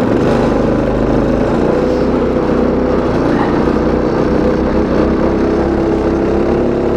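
Go-kart's Predator 212cc single-cylinder four-stroke engine running steadily under throttle as the kart drives along.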